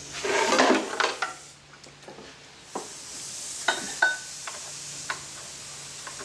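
Hand tools working on a bare engine: a stretch of metallic scraping and clatter in the first second or so, then scattered sharp clinks and knocks of steel on steel, one ringing briefly about four seconds in.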